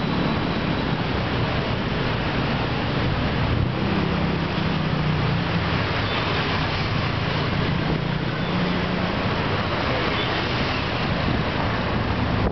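Steady road traffic noise from a busy multi-lane city road, with cars, motorbikes and buses running, under a low engine hum that grows stronger in the middle.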